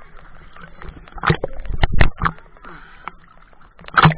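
Water sloshing and splashing around an action camera held half-submerged at the surface, with a cluster of sharp splashes a little over a second in and another hard splash near the end.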